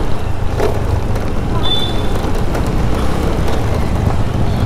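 Riding noise from a Honda Dio scooter in traffic: a steady low wind rumble on the GoPro microphone with road and traffic noise. A short high beep sounds about two seconds in.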